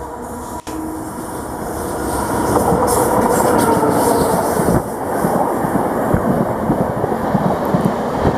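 Electric-hauled express passenger train passing close at speed. Its rolling noise swells about two seconds in, and the wheels clatter over the rail joints.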